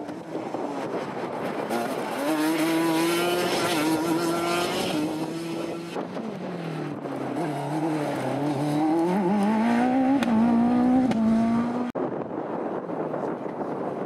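Racing engines of hillclimb competitors, in quick cuts. First a superkart's engine holds a steady high note. Then a single-seater's engine drops in pitch and climbs again as it takes a bend, and it cuts off suddenly about twelve seconds in, giving way to a quieter road car's engine.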